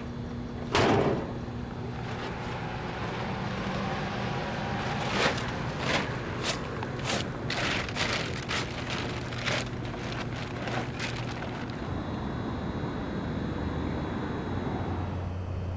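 A single thump about a second in, then a run of sharp crinkles and rustles as a blue plastic tarp is handled in a pickup truck bed, over a steady low hum.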